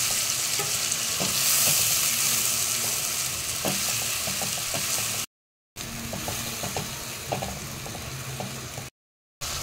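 Onion, tomato, ginger and garlic paste sizzling in hot oil in a non-stick kadai while a spatula stirs it, with scattered scrapes and taps against the pan. The sound cuts out completely twice for a moment.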